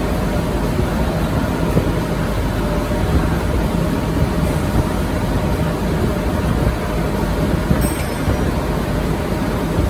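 Rotogravure printing press running: a loud, steady mechanical rumble with a constant hum.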